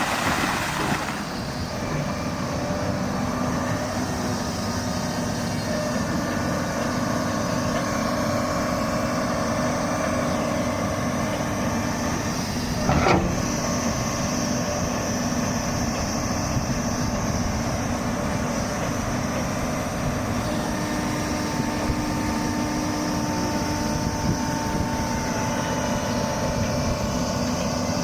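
Doosan 300LC-V excavator running steadily under work, its diesel engine and hydraulics giving a constant drone with a few held tones. One sharp clank about halfway through.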